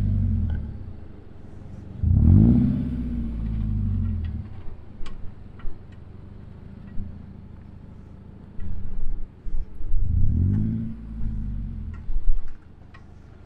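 Subaru Crosstrek's flat-four engine running at low speed and revving up twice, once about two seconds in and again about ten seconds in, as the car is driven over the dirt mounds, with scattered clicks and knocks.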